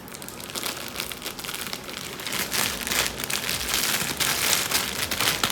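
Packaging being handled: a dense, continuous crinkling and rustling, like plastic wrap or foam, that grows louder after about two seconds.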